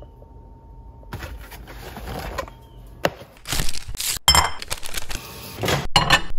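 Kitchen handling sounds: a cardboard box rustling as it is pulled from a wire pantry shelf, then a ceramic bowl knocked and clinked as it is set into a microwave, a string of sharp clicks and knocks that cuts off abruptly several times.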